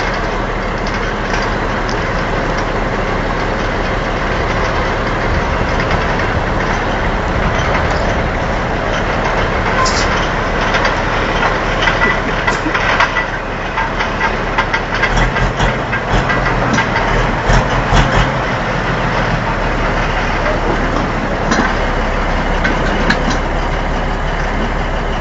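Heavy diesel machinery running steadily, with scattered clanks and knocks from about ten seconds in and a brief stronger, lower engine note a few seconds later.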